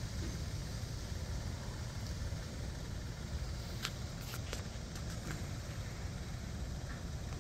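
Low, steady engine-like rumble, with a few short clicks about four seconds in.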